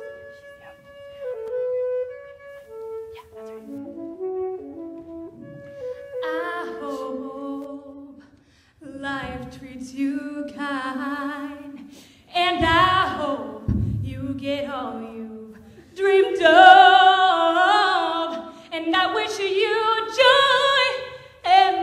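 A saxophone plays a slow melody of steady held notes, then drops out about six seconds in as a female singer comes in alone with a wavering, vibrato-laden voice. Her singing grows louder in the last few seconds.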